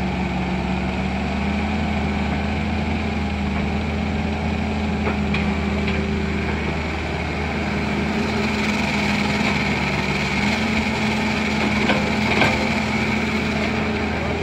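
Backhoe excavator engine running steadily, with a few sharp knocks about five, six and twelve seconds in.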